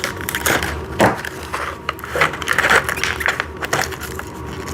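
Small metal bolts and washers clinking and rattling as they are handled and sorted, a run of irregular light taps.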